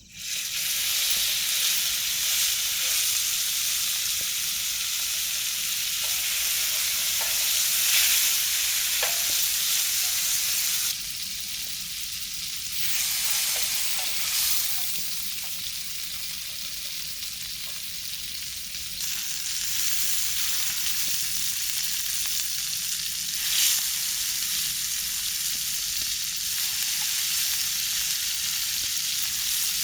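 Food sizzling and frying in a pan, with light clicks of a utensil stirring it. The sizzle drops back and swells again a couple of times.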